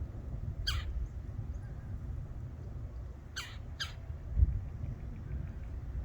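Red-bellied woodpecker giving three short harsh calls, the last two about half a second apart, over a steady low rumble. A low thump comes about two-thirds of the way in.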